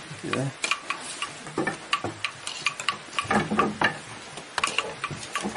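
A wooden loom being worked, a run of sharp, irregular clicks and knocks of wood on wood from the beater and heddles.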